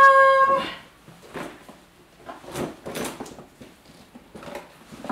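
A woman's held, sung 'da-daa' note ends about half a second in. Then come soft, irregular rustles and light knocks as a coated-canvas Louis Vuitton Keepall travel bag is pulled from its cloth dust bag and handled.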